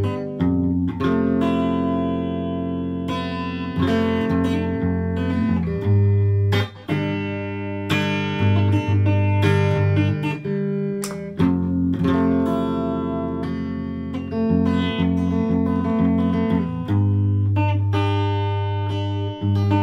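Electric guitar being played: sustained chords and picked notes that ring on, with a brief gap about seven seconds in.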